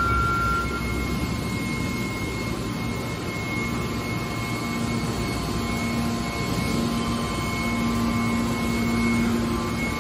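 Hydraulic scrap metal baler's power unit running steadily: a constant mechanical drone with a thin high whine and a low hum that grows stronger about halfway through.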